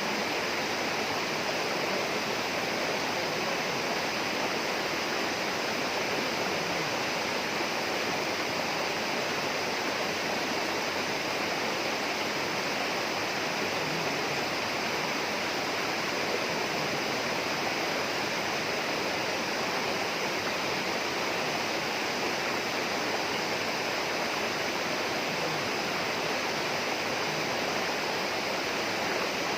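Steady rushing of flowing water in a tropical rainforest, an even, unbroken noise.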